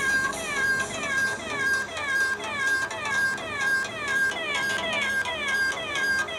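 A recorded cat meow from a cat soundboard app, played over and over about twice a second. Each meow is the same short call, falling in pitch and then levelling off.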